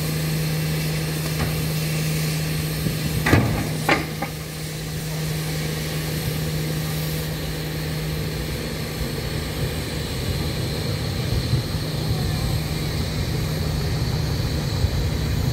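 An engine running steadily with a low hum. Two short sharp noises stand out about three and four seconds in.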